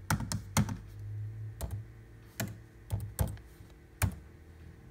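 Slow, uneven typing on a laptop keyboard: about ten single key clicks, with short and longer gaps between them.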